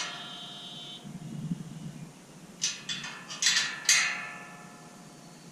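Steel gate latch and fittings clanking against a square-tubing gate: sharp metal strikes that ring briefly, a fading ring at the start and a cluster of several strikes about three to four seconds in.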